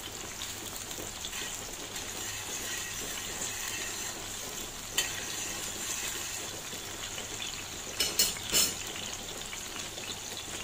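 Sliced garlic and chili sizzling steadily in hot olive oil in a pan as they are stirred, with a utensil clinking against the pan once about halfway through and a few times near the end.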